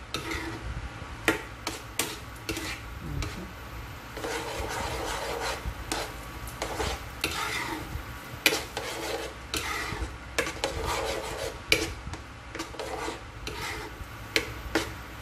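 A spoon stirring and scraping through thick sweet and sour sauce with sliced vegetables in a nonstick frying pan, with irregular clicks and knocks of the spoon against the pan.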